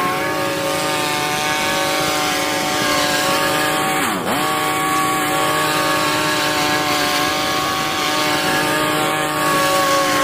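Briggs & Stratton 20 HP Intek Plus engine of a Craftsman DLS3500 riding mower running at a steady speed while mowing. About four seconds in, the engine speed dips sharply for a moment and recovers.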